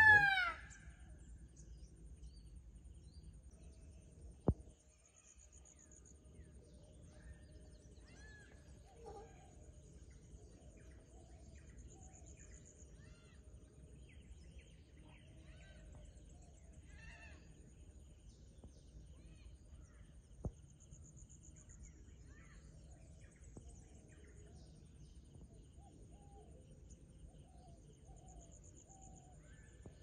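A peacock (male Indian peafowl) gives one loud call that rises and falls right at the start. Quiet rural background follows, with faint distant bird chirps, a high insect buzz that comes and goes every several seconds, and two sharp clicks.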